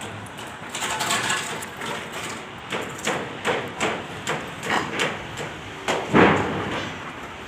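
Hammering on a building site: a run of sharp knocks about two a second, the loudest one near the end.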